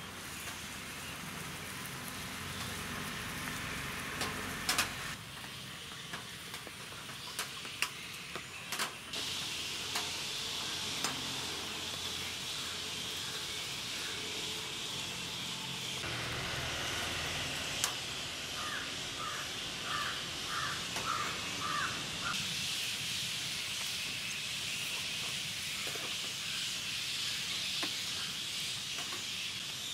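Puri deep-frying in hot oil in an iron kadai: a steady sizzling hiss that grows stronger partway through, with a few sharp clicks of the slotted spoon against the pan. About two-thirds of the way in, a bird gives a quick run of about seven short calls.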